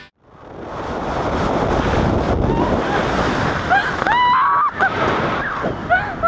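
Air rushing and buffeting the microphone during a tandem parachute descent, swelling up over the first second. From about four seconds in, a woman's high, excited shrieks come over the wind.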